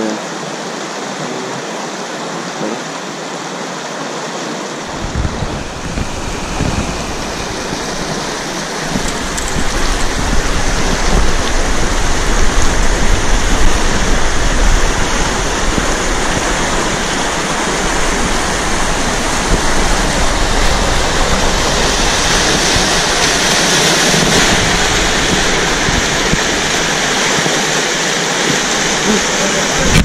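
River rapids: fast white water rushing over rocks in a steady, continuous wash. About five seconds in, a deeper low rumble joins, and from about ten seconds in the rushing is louder.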